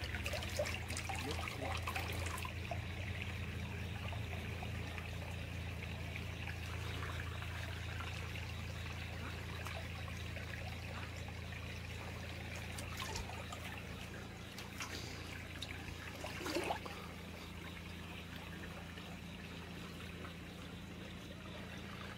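Shallow stream water trickling and running steadily, with a few brief knocks or splashes; the loudest comes about three-quarters of the way through.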